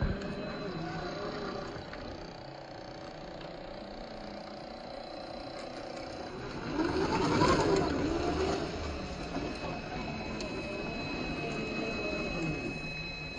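Traxxas TRX-4 Defender RC crawler's electric motor and gearbox whining as it crawls over rock. The pitch rises and falls with the throttle and is loudest about seven to eight seconds in.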